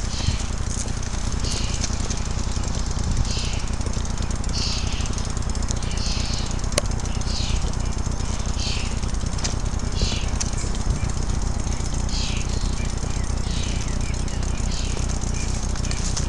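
Steady low rumble of wind buffeting the camera microphone, with soft swishes about once a second in a walking rhythm, footsteps on grass and pavement.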